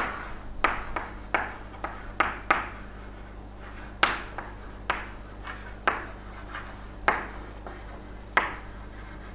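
Someone writing: a series of irregular sharp taps and short strokes, about one or two a second.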